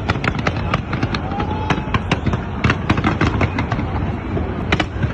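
Fireworks going off in a rapid, irregular string of bangs and crackles over a steady low rumble.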